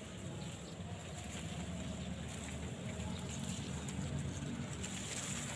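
Wind rumbling on the microphone in an open rice field, unsteady and low.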